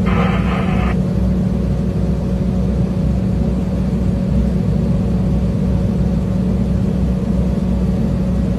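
Crane's engine running at a steady, unchanging drone, with a brief higher hiss in the first second.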